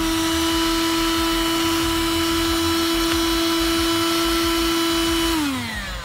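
Black 120 W 12-volt handheld car vacuum running with a steady, high motor whine. About five seconds in it is switched off and the whine falls in pitch as the motor winds down.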